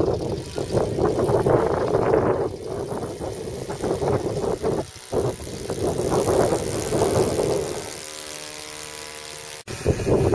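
Autogyro engine and propeller droning as it flies overhead, rough and uneven in level, with abrupt breaks at edit cuts about five seconds in and near the end. A steadier, even engine tone comes through for the couple of seconds before the last cut.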